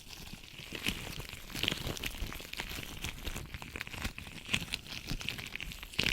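Latex-gloved hands rubbing and crinkling close to the microphone, an irregular crackle of small squeaks and clicks.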